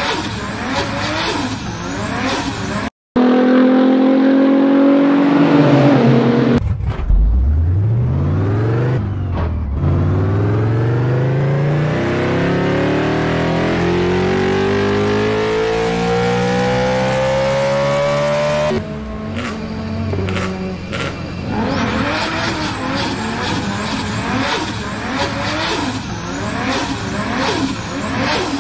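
Race-car engine sound effect: busy engine noise, a brief cut to silence about three seconds in, a steady engine drone, then a long smooth rise in pitch like an engine accelerating through the revs for about twelve seconds before it cuts off abruptly, and busy engine noise again to the end.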